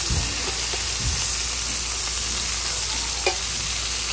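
Bacon-wrapped filet mignon sizzling steadily in hot oil in a stainless steel frying pan while being turned with metal tongs. There are a couple of soft knocks near the start and one sharp click of the tongs a little after three seconds.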